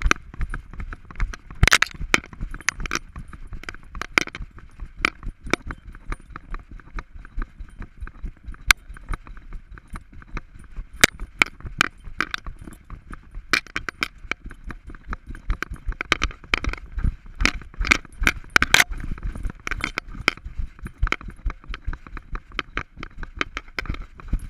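Rapid, irregular clicking and knocking, several a second, from a GoPro camera jostling in its mount on the back of a walking Alaskan Malamute.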